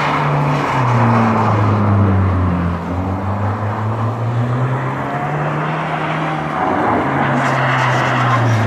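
Volvo 940's engine held at high revs while the car slides round in a drift, with a loud hiss of spinning tyres over the engine note. The revs dip briefly twice and come back up.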